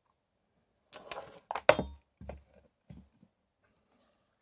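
Small metal rebuildable-tank parts clinking and knocking as they are handled and set down: a few short knocks, the loudest about one and a half seconds in.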